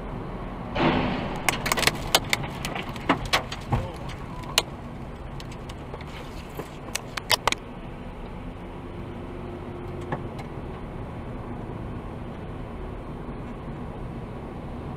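Steady road and engine noise inside a moving car, with a loud burst about a second in followed by a scatter of sharp clicks and rattles for several seconds, one more near the end.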